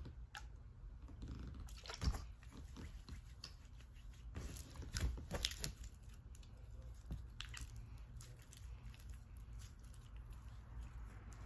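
Blue slime being kneaded and pulled in activator-coated hands, making soft sticky clicks and squelches at irregular intervals.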